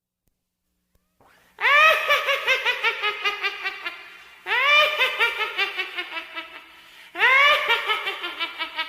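A witch's cackling laugh sound effect: three near-identical bursts of rapid, pitched cackling, each starting loud and trailing off, the first coming in about a second and a half in after silence.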